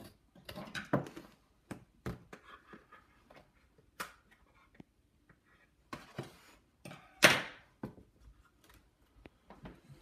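Cardboard toy box with a clear plastic window being handled and tilted on a table: scattered knocks and taps, with a louder rustle about seven seconds in.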